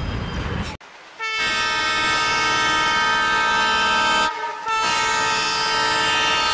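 Train horn sounding two long, steady blasts with a short break between them; before the first blast, a moment of train running noise that cuts off abruptly.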